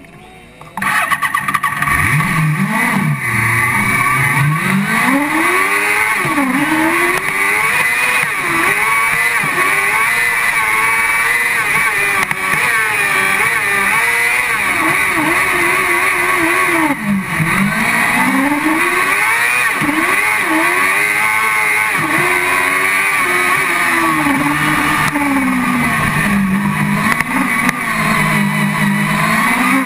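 Car-cross racing buggy's engine heard from inside the cockpit, suddenly loud about a second in, then revving hard with its pitch rising and falling over and over as it is driven around a dirt track.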